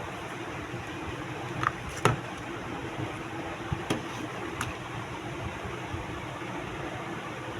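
AirPods Max box and packaging being handled: a handful of short sharp clicks and taps, the loudest about two seconds in, over a steady hiss.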